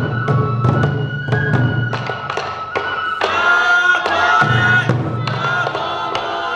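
Sansa odori folk music: taiko drums struck in a steady beat, about three strikes a second, under a high bamboo flute melody. About halfway in the drumbeats thin and the melody fills out.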